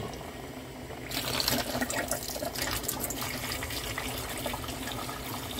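Water running into a bowl of raw chicken wings, filling it up to cover them. The flow becomes louder and splashier about a second in and then runs steadily.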